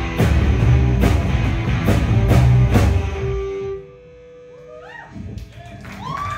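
Live rock band of electric guitars, bass and drum kit playing loudly with steady drum hits, stopping about three seconds in and ringing out. After that, a held note and a few quieter rising, sliding tones.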